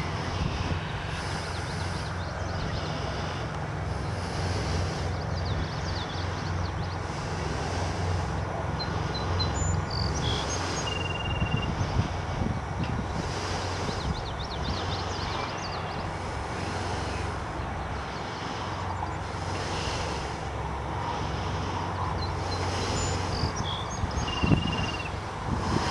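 Steady low hum of an engine running, with a few faint, short high-pitched chirps over it.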